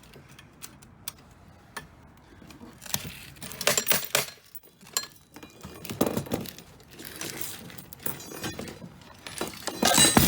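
Coins, mostly quarters, clinking and jangling as they are worked loose from a broken-open payphone. Scattered clicks are broken by several short metallic clatters, the loudest near the end.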